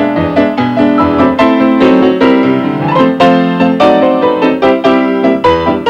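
Piano music: a brisk tune with many quick notes over a steady bass.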